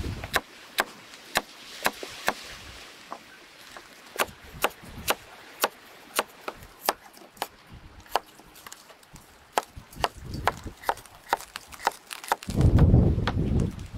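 Chef's knife chopping carrots and potatoes on a wooden cutting board: sharp knocks of the blade on the board, about two a second, coming faster after about eight seconds. A loud low rumble cuts in about a second and a half before the end.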